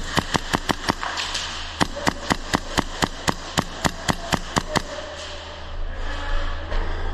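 Airsoft gun firing a rapid string of single shots, each a sharp crack: a quick run of about seven, a short pause, then about seventeen more at roughly five a second.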